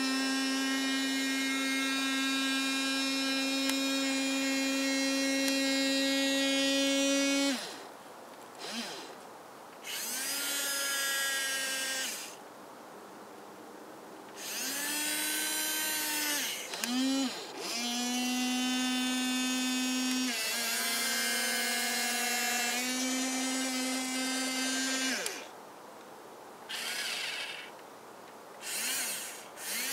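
Electric motors of a radio-controlled toy excavator whining in runs as the boom, arm and cab are worked: one long, steady whine of about seven seconds, then a string of shorter stop-start runs, a few with a slight rise or fall in pitch.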